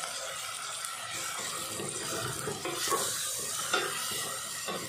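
Onions, tomatoes and ginger-garlic paste sizzling in hot oil in a stainless steel pot, sautéed with a wooden spatula that scrapes and knocks against the pot, more often in the second half.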